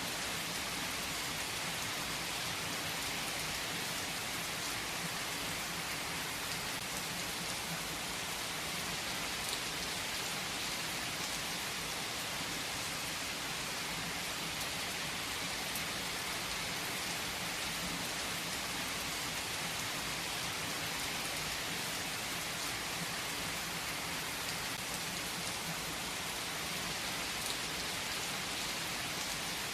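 Steady rain falling, an even hiss that holds at one level throughout, with a few faint drop ticks.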